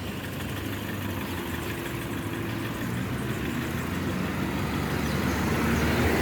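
Car engine running with road noise, a low steady hum that slowly grows louder.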